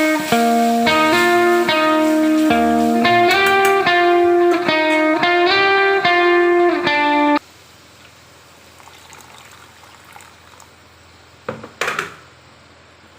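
Background music played on electric guitar, with a steady rhythm of plucked notes, cutting off suddenly about seven seconds in. After it, faint low noise remains, with a couple of short sharp knocks near the end.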